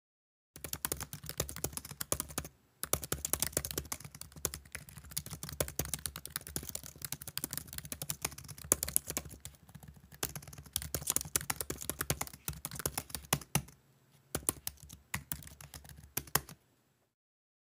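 Rapid computer-keyboard typing: a dense run of key clicks with two short pauses, over a low hum, stopping about a second before the end.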